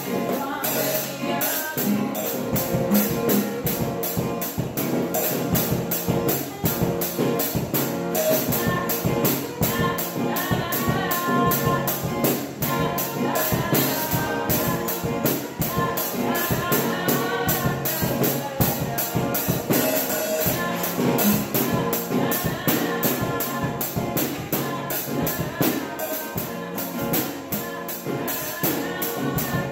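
Informal live jam: acoustic guitars strummed and a woman singing over a small suitcase drum kit, with a cymbal and drum played steadily with sticks. The sound is thin and crowded, as recorded on a phone.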